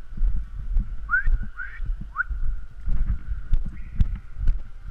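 Uneven low thumps and rumble, typical of footsteps and gear moving against a body-worn camera, with three short rising whistle-like chirps between about one and two seconds in and a few sharp clicks later.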